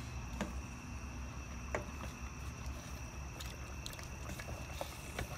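A wooden spatula stirring potatoes in chicken curry in a stainless steel pot: liquid sloshing, with a few light knocks against the pot. Crickets chirp steadily behind it.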